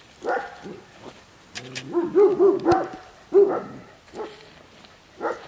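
Dog barking: single barks, then a quick run of about four barks about two seconds in, and the loudest bark just after.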